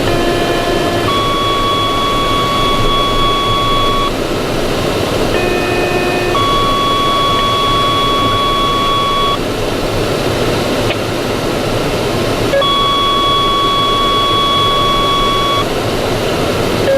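Fire-department two-tone sequential pager tones over a scanner radio: a short tone of about a second, then a higher tone held about three seconds, repeated for several stations in turn, alerting them before the dispatcher's announcement. A steady hiss of noise runs underneath.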